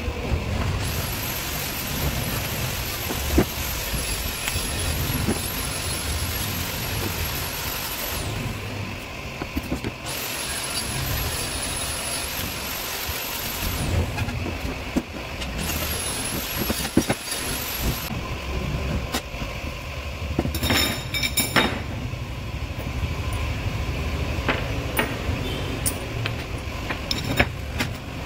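Corded electric drill running in three runs of several seconds each, a high steady whine, boring rivet holes in a stainless steel square-tube frame. Later come a few sharp metal clinks and taps, over a steady low rumble.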